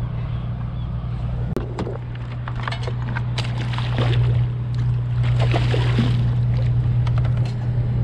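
A large ray splashing in the water alongside a kayak as it is let go, with scattered knocks and slaps against the hull, loudest about halfway through. A steady low hum runs underneath.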